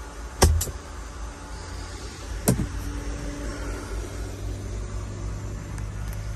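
Sharp knocks from the cabin's fittings being handled: two close together as a storage compartment panel is pushed shut, and another about two seconds later. A steady low hum runs underneath.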